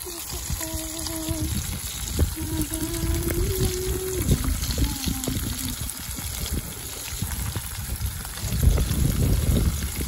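Whole fish frying in oil in a pot on a portable gas camping stove, a steady sizzle and bubbling. Low rumbling grows louder near the end.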